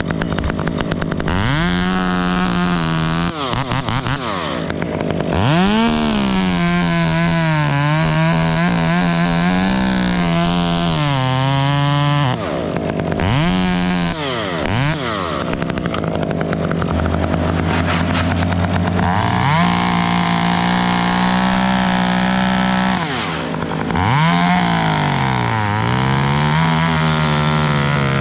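Two-stroke chainsaw running and cutting, its pitch swooping up and falling back several times as it revs and takes load in the wood. A lower, steady engine hum joins about two-thirds of the way through.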